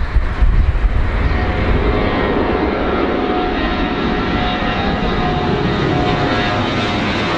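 Airbus A340's four turbofan engines at take-off power as the airliner climbs out low overhead. A loud, steady rushing jet noise, with thin whining fan tones that come in after a second or two and grow brighter toward the end.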